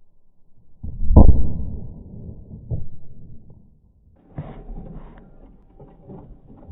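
Detonation of a 2 g charge of ETN (erythritol tetranitrate) inside a microwave oven: a single deep boom about a second in, dying away in a long low rumble, with a smaller thump a couple of seconds later.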